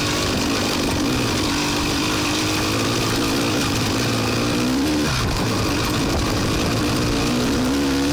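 Off-road vehicle engine running while riding a dirt track, its pitch rising and falling with the throttle, over a steady rushing noise.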